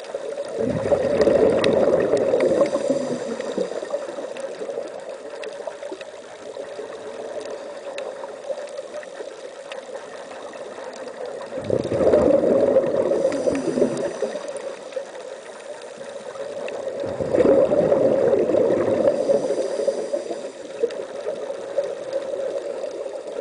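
Scuba regulator exhaust bubbles gurgling underwater in three bursts of a few seconds each, about a second, twelve seconds and seventeen seconds in, as a diver breathes out. A steady low hum runs underneath between the bursts.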